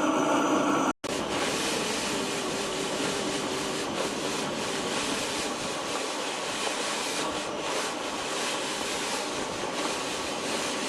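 Vacuum cleaner motor running with a steady whine and rushing hiss as it is tested on sucking up water. About a second in the sound drops out for an instant, then carries on as a noisier rushing hiss with less whine.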